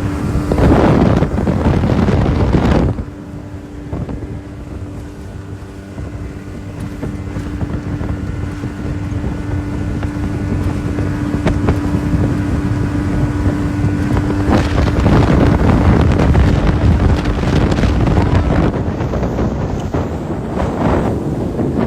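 1985 Yamaha 50 hp two-stroke outboard running under way, a steady engine note under heavy wind buffeting on the microphone. The buffeting comes in loud gusts in the first few seconds and again from about fifteen seconds in.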